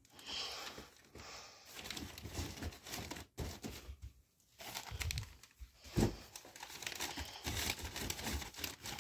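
Wrapping paper crinkling and rustling as it is handled and pushed into a cardboard box, with a single bump about six seconds in.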